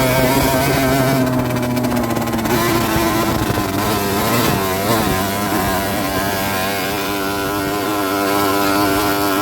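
Rieju Drac 50's 50 cc two-stroke engine running under way. Its note eases down over the first few seconds, dips briefly about four and a half seconds in, then holds fairly steady.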